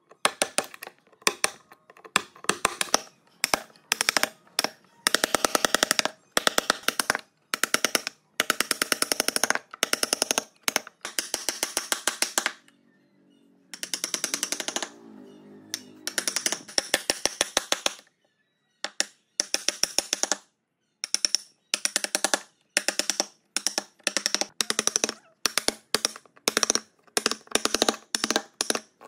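Repeated quick strokes of a hand tool working wood, each stroke a short rasping burst of fine clicks, coming about one or two a second, with a quieter, lower-pitched stretch around the middle.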